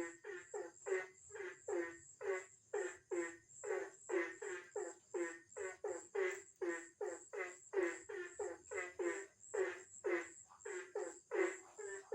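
Frogs croaking in a chorus: short calls repeating about three times a second, with a steady high-pitched insect buzz behind them.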